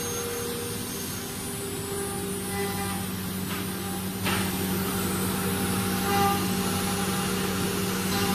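Four-axis ATC CNC wood router running, a steady mechanical hum with several held whining tones. There is a brief sharp click about four seconds in.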